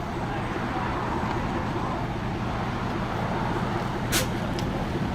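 Steady motor vehicle and traffic noise with a low hum, broken a little after four seconds in by a short, sharp hiss and a fainter one just after.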